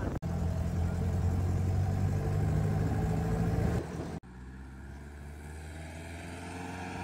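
Old Mahindra 4x4 jeep's engine running steadily as the jeep climbs a slope. About four seconds in the sound breaks off, and the engine comes back quieter and slowly grows louder.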